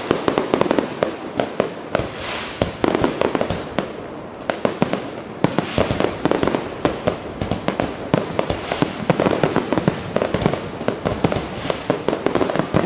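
Aerial fireworks display: many bangs and crackles in quick succession from bursting shells and crackling stars, easing briefly about four seconds in before a sharp bang sets it going again.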